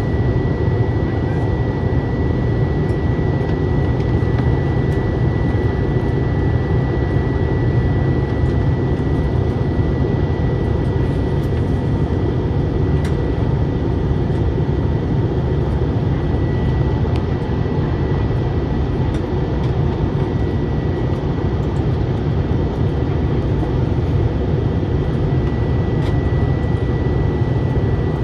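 Steady engine and airflow roar of an Airbus A321 in flight, heard from inside the passenger cabin, with a thin high tone held steady through it.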